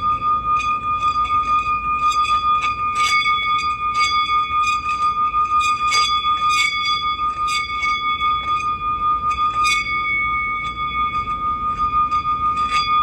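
Singing bowl ringing in one steady high tone with several overtones above it, its level pulsing in a fast wobble, with light clicks scattered throughout.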